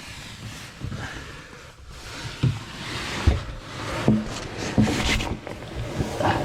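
Scattered knocks and clunks from hands and tools working on a sailboat's interior woodwork, over a steady rustling hiss.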